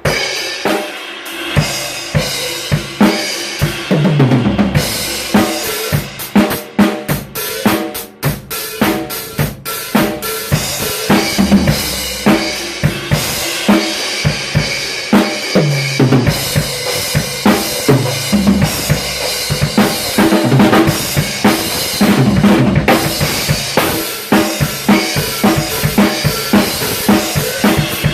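Drum kit played in a steady groove to show off Arborea cymbals: Dragon hi-hats, an AP crash, and Ghost and Night cymbals ringing over kick and snare. Several fills step down in pitch across the drums.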